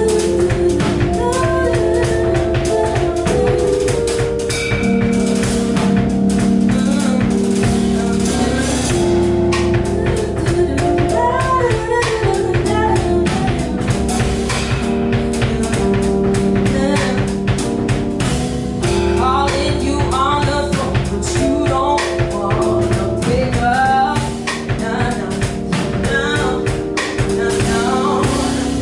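Music with a steady beat on drum kit and tambourine, guitar and bass notes, and a voice singing.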